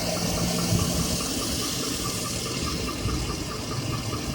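2007 Chevrolet Avalanche V8 running with a rapid, even clicking from inside the engine, over a steady hiss. The owner suspects a noisy lifter or piston slap.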